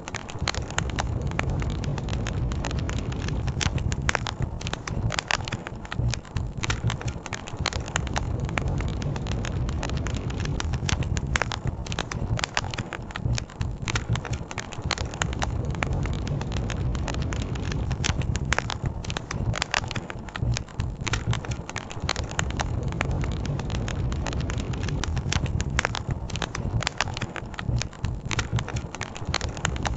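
Campfire crackling, with frequent irregular sharp pops and snaps, over a steady low rumble.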